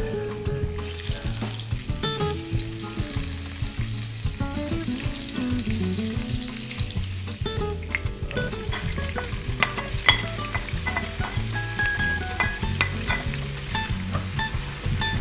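Food frying in a hot pan, with a steady sizzle that starts about a second in and scattered clicks of a utensil stirring it.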